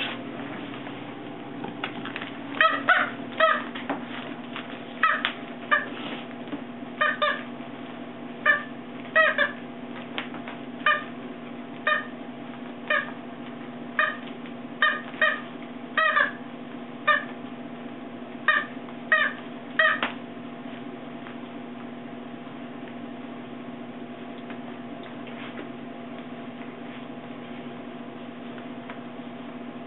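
Puppies playing with a plush toy: a run of short, high squeaks, irregular and a little more than one a second, that stops about two-thirds of the way through, over a steady low hum.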